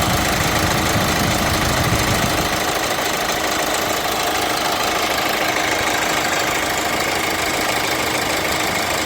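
Car engine idling with a steady whine. An electrical load is switched on and the drive-belt roller (tensioner/idler pulley) wobbles and jerks, a sign of roller runout. A low rumble drops away about two and a half seconds in.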